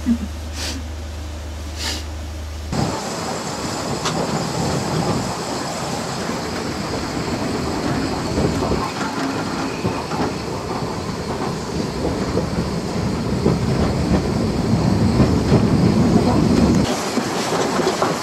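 Narrow-gauge steam train moving, a dense rushing train-and-steam noise that builds gradually louder. It is preceded in the first couple of seconds by a steady low hum and a few clicks.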